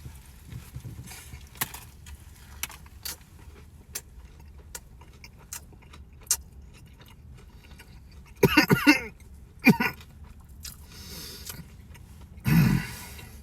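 Close-up chewing of a fried chicken sandwich, a string of small crunches and wet mouth clicks. There are two short hums about two-thirds of the way through and a breath near the end.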